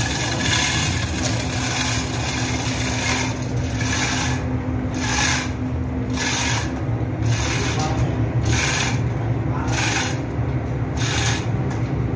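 Steady engine-room machinery drone with a strong low hum. From about four seconds in, a rasping, scraping noise comes and goes roughly once a second.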